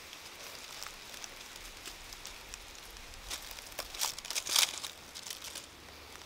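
Dry leaves crinkling and crackling as a person shifts and works on them, with a cluster of louder crackles about four seconds in.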